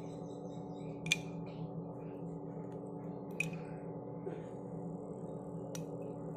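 A steel spoon clinks against glass bowls while thick curd is scooped and spooned onto fried idli pieces: three short ringing clicks a couple of seconds apart, over a steady low hum.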